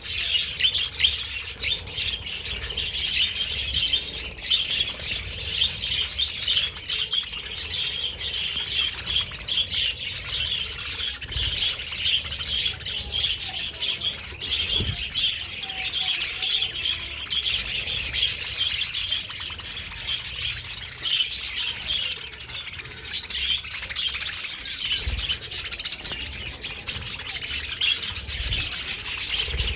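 Budgerigars chattering and chirping continuously, many quick calls overlapping.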